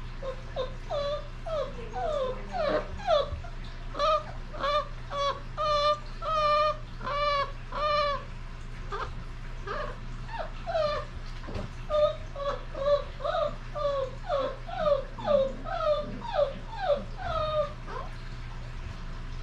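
33-day-old Basset Hound puppies whimpering in a long run of short, high cries, about two a second. Some cries slide down in pitch and others are held with a wavering pitch. The cries stop shortly before the end.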